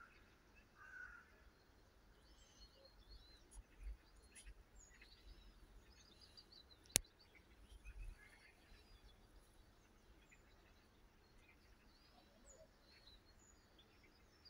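Near silence outdoors: faint, scattered distant birdsong over a low rumble, with one sharp click about seven seconds in.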